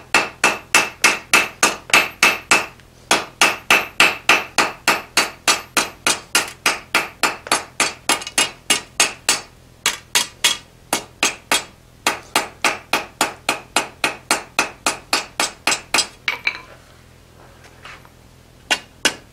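Hand hammer striking the glowing end of a twisted steel bar on an anvil, rounding up the end: a steady run of ringing blows, about three or four a second, broken by short pauses and a longer lull near the end before a few more blows.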